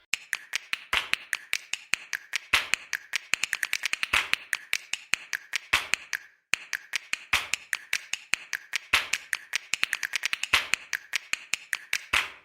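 Rapid, irregular clicking and tapping, several sharp clicks a second, with a short pause about six seconds in.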